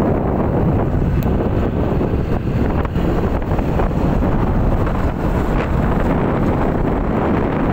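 Wind buffeting the microphone: a loud, steady, low rushing rumble with no break.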